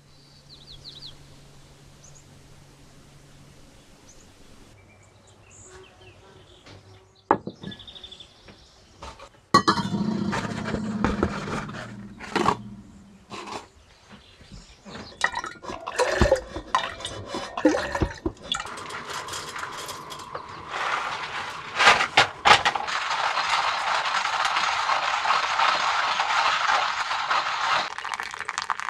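Cups, dishes and kitchen utensils clinking and clattering while coffee is made, then a steady rushing pour of hot water from a kettle into a paper-filter pour-over coffee dripper over the last several seconds.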